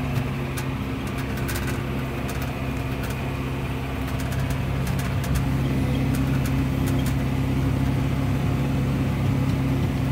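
Massey Ferguson 6615 tractor's engine running steadily under load, heard from inside the cab, with a John Deere 566 round baler working a heavy windrow behind it. Scattered light clicks or rattles sound over the steady engine note.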